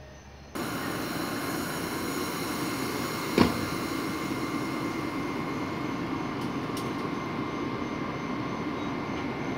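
Amtrak ACS-64 electric locomotive standing at the platform, with a steady drone from its running cooling blowers and a few steady tones over it. One sharp knock comes about three and a half seconds in.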